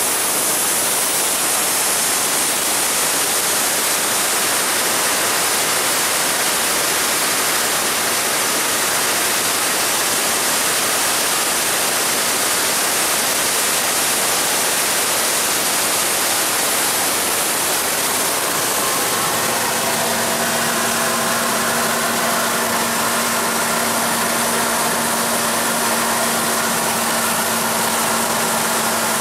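Small gas turbine engine in the back of a turbine-powered Honda Z, running steadily with a loud hissing roar, heard from inside the car while it drives. About two-thirds of the way through, the high hiss eases and a steady humming tone with several pitches comes in.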